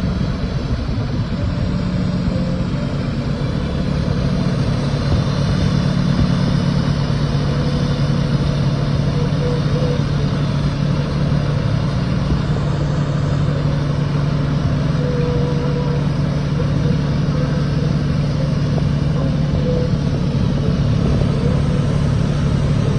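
TIG welding arc buzzing steadily during a root pass, a continuous hiss over a low hum.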